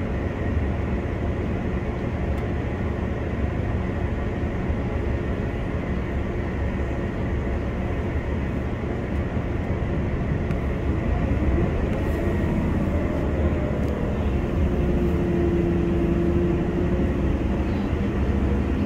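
Diesel passenger train running, heard from inside the carriage: a steady rumble of wheels on rail, with a tone that rises in pitch about eleven seconds in and then holds steady as the train gets a little louder.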